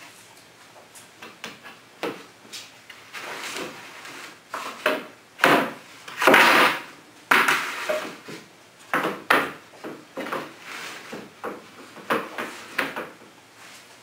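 Pine boards being slid across and set down on a wooden worktable: irregular wooden knocks and scrapes, loudest about six seconds in.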